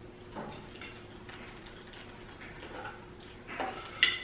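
Kitchen utensils tapping and scraping against a metal pot and bowls: a scattering of light clicks, with one sharper clink near the end.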